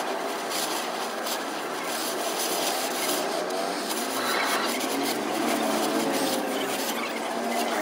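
Gas torch flame hissing steadily as it heats a metal fitting, with a faint wavering whine underneath.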